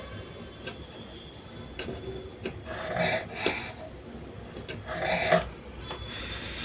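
Hand work on a small plastic hair trimmer: rubbing and scraping of its parts, with two louder scraping bursts about three and five seconds in and a few light clicks.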